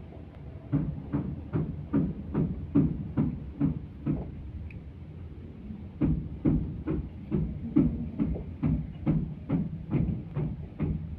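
A knife slicing a peeled banana by hand, cutting the pieces off into a steel bowl, makes short, even knocks about two or three a second. The knocks start about a second in and pause for a couple of seconds midway before resuming.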